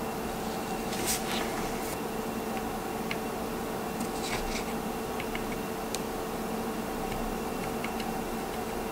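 Steady room hum with a few small ticks and light scratches as a soldering iron tip works a red jumper wire onto the rail of a plastic N scale turnout. The clearest ticks come about a second in and in a short cluster around four seconds.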